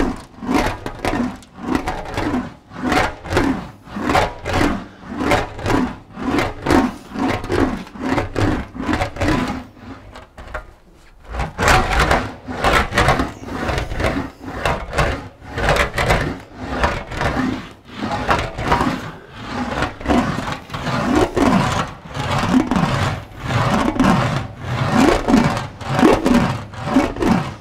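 English wheel rolling a car's rear mudguard panel back and forth in quick passes, about two strokes a second, each pass rising and falling in pitch as the panel is stretched into a tightening curve. The strokes stop briefly about ten seconds in, then carry on.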